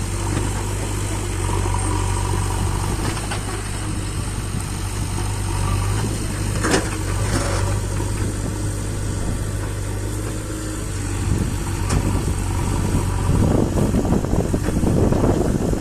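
Excavator engine running steadily, with a few sharp knocks in the middle. Near the end a louder, rough crackling noise joins in.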